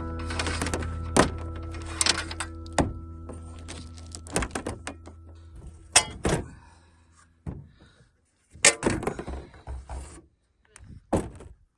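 Knocks and clanks of a solar panel's frame against slotted metal angle brackets as the panel is fitted onto its rack on a metal trailer roof, a dozen or so sharp knocks in small clusters. Background music fades out over the first seven seconds or so.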